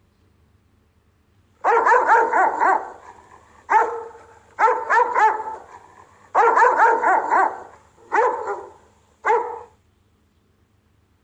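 Rottweiler guard barking: six quick bouts of several loud barks each, starting about one and a half seconds in, with the last bout short.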